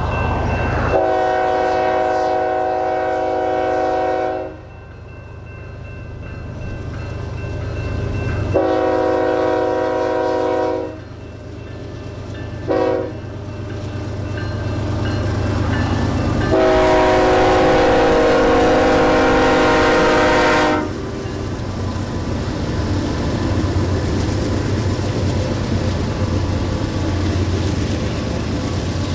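Lead diesel locomotive of a BNSF freight train, BNSF 6102, sounding its horn in the grade-crossing pattern, long, long, short, long: the signal for approaching a public road crossing. A steady rumble of the train runs underneath.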